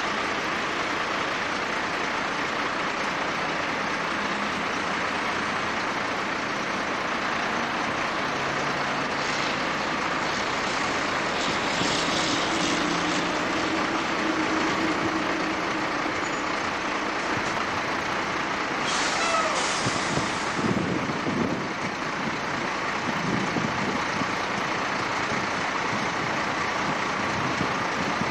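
Peterbilt semi-truck's diesel engine running as the tractor-trailer manoeuvres slowly, heard at a distance over a steady noise haze. Air hisses come twice, partway through and again later, the second with a falling tone.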